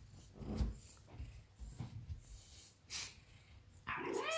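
Maine Coon cat sniffing and snuffling right at the microphone in short noisy puffs, with a brief meow that rises and falls near the end.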